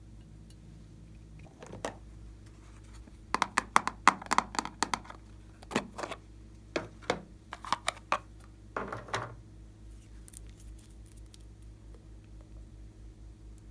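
Close-up handling sounds as slime and makeup ingredients are worked by hand: bursts of sharp clicks and sticky crackles between about two and nine seconds in, then only a few faint ticks.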